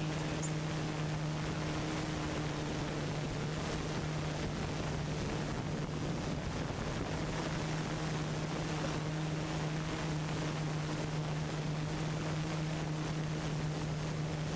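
Steady low hum over an even hiss, unchanging throughout.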